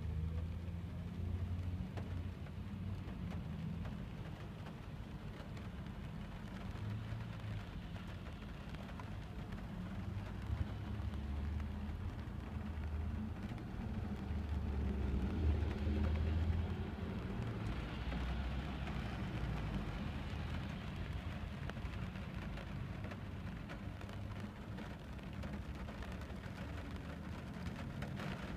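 Inside a car driving slowly in the rain: a low engine and road rumble with rain pattering on the roof and windscreen, growing louder for a few seconds past the middle.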